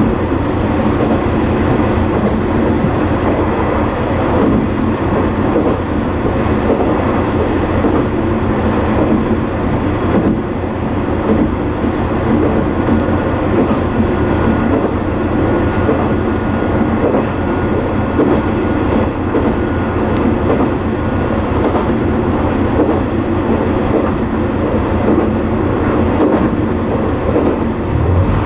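Diesel railcar on the non-electrified JR Dosan Line running steadily along the track, heard from inside the cab: a constant engine drone mixed with wheel noise on the rails.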